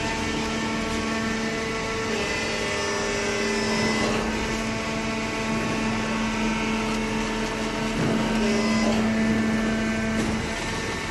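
Cardboard baler with feed conveyor running: a steady machine hum with several held tones, and brief clattering about 4 and 8 seconds in.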